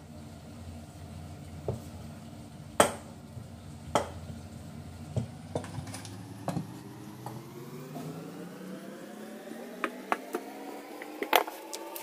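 Wooden rolling pin knocking and rolling on a countertop as a ball of bread dough is flattened: a series of sharp knocks, the loudest about three seconds in. Under it is a steady background hum that slowly rises in pitch in the second half.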